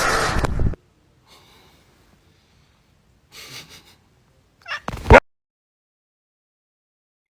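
A cat gives one short, loud cry about five seconds in. Before it, a loud rushing noise cuts off abruptly within the first second.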